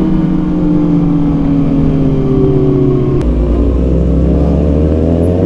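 2019 Kawasaki ZX-6R 636's inline-four engine running through an Arrow exhaust under way, its pitch sagging slightly. About three seconds in there is a click and a sudden drop in revs as it shifts up on the quick shifter, and then the revs climb again.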